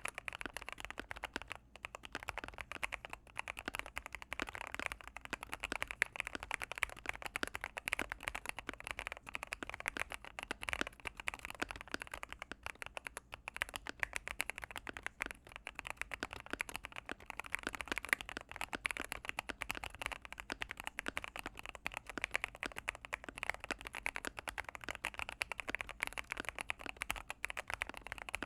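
Continuous fast typing on a mechanical keyboard with Gateron Pro Yellow linear switches, mounted on EVA gaskets in an Akko MOD005 case with ASA-profile keycaps. The keystrokes come as a dense, unbroken run of clicks, several a second.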